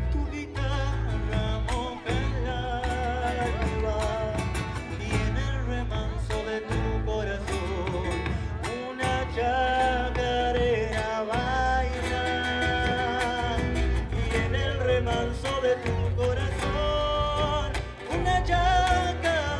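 Live band music: guitars over heavy bass and drums, with a wavering melody line on top.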